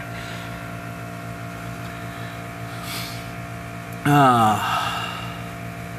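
Steady machine hum in a workshop, with a brief faint scrape about halfway through and a man's short grunt, falling in pitch, about two-thirds of the way in, as a brass barbed fitting is forced into an air hose.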